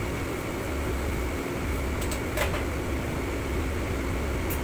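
Steady ventilation-fan noise with a low hum, as from a commercial kitchen's extraction. A few light clinks, like a metal utensil against a pot, come about two seconds in and again near the end.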